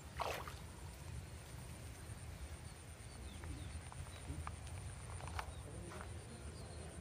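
Footsteps on a dirt path, heard as scattered soft irregular steps, with a brief scrape just after the start and a low rumble from the phone being carried. Behind them, a faint steady high insect drone and a few faint bird chirps.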